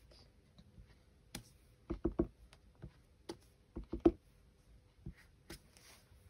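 Miniature star stamp tapped onto an ink pad and pressed onto card stock: a run of light knocks, some single and some in quick groups of two or three, every second or so.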